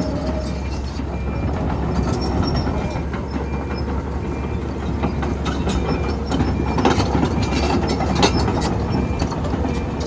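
Kobelco SK210LC-10 excavator's Hino diesel engine running steadily under work, with a faint beep repeating about twice a second and a couple of sharp metal clanks about seven and eight seconds in.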